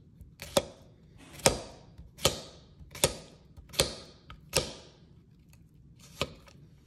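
Chef's knife making angled 45-degree slices through a cucumber, each cut a short slicing hiss ending in a sharp wooden tap as the blade stops on the wooden guide sticks. Seven cuts at an even pace, the last after a longer pause.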